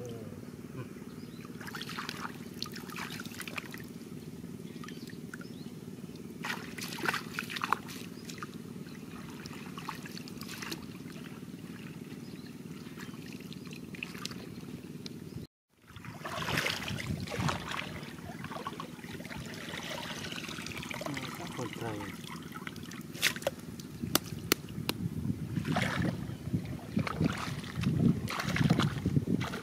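Shallow water splashing and sloshing in irregular bouts as a woven basket is dipped and scooped through a muddy flooded rice field, over a steady low hum.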